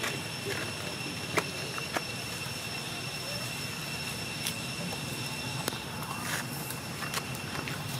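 Steady high-pitched insect drone with scattered sharp clicks and cracks as a long-tailed macaque bites and tears a dry banana-plant stalk.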